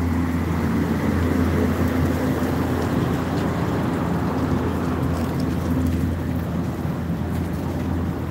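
Steady low hum of large outdoor air-conditioning condenser fan units, with a constant rushing hiss over it.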